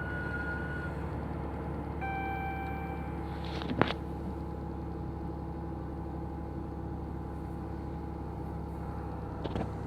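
2013 Dodge Charger's 3.6 L Pentastar V6 idling steadily after a cold start. A brief steady tone sounds about two seconds in, and a single sharp click a little before the four-second mark.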